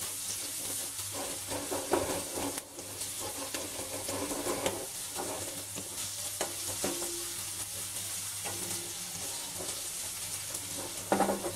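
Chopped onions sizzling steadily in hot oil in a steel kadhai as they start to sauté. A spatula scrapes and stirs them against the pan every few moments.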